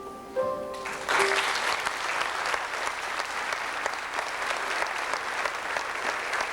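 An audience applauding, breaking out about a second in, over the last few held notes of soft background music.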